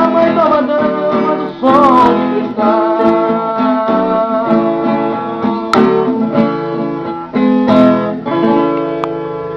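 Acoustic guitar music, plucked and strummed, with a wavering melody line above the chords.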